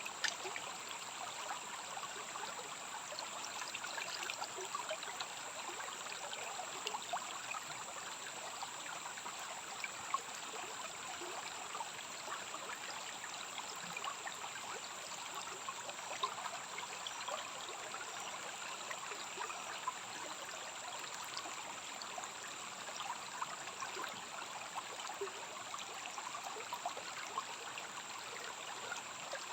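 Rainforest stream running and trickling steadily, with a steady high-pitched whine above it.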